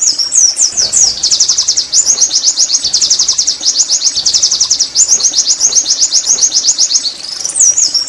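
White-eye (pleci) singing a long, fast twittering song: a rapid run of many high notes, with a few downward-sweeping notes at the start and again near the end.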